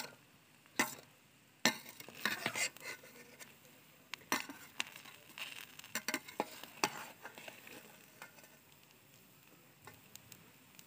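A metal spoon stirs and turns steamed biryani rice in a metal pot, mixing the food colour through it. It makes irregular scrapes and clinks against the pot, which thin out over the last few seconds.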